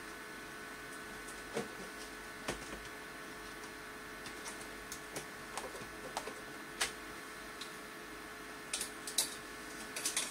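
Steady electrical hum with several constant tones, overlaid by irregular small clicks and ticks, a quick cluster of them near the end.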